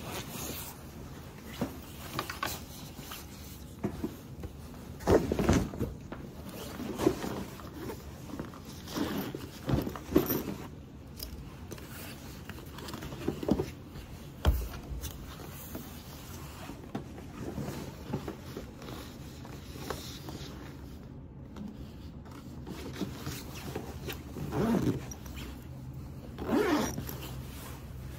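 Clothing and bag handling: puffer-jacket fabric rustling, zippers pulled on the jacket and a backpack, with one dull knock about halfway through.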